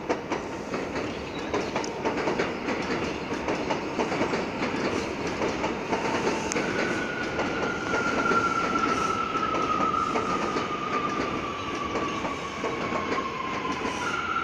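R179 subway train running in on the elevated track: a steady rumble with quick clatter of wheels over the rail joints. From about halfway through, a motor whine falls slowly in pitch as the train slows.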